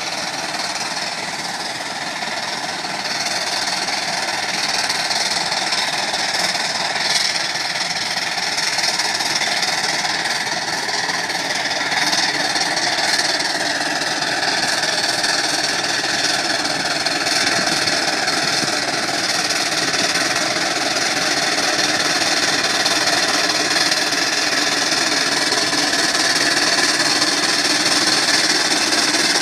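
1907 Avery 18 hp undermounted steam traction engine working under load pulling a plow, its exhaust chuffing in a fast, even beat that grows louder as it comes closer.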